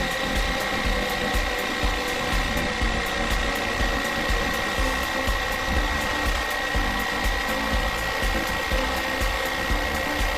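Small electric power tool motor running at a steady high speed with a constant whine.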